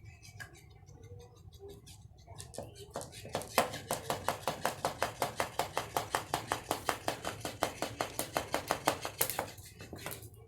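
Battery-operated flopping fish toy tapping as its motor flips its tail: a few scattered taps, then from about three and a half seconds in a fast, even run of clicks, about five a second, that stops near the end.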